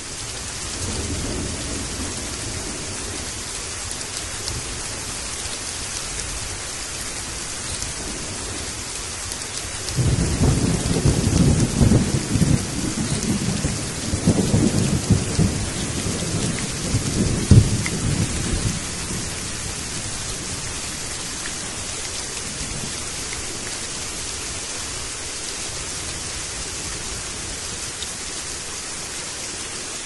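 Steady rain falling on leaves and brick. About ten seconds in, a long roll of thunder rumbles for about nine seconds, louder than the rain.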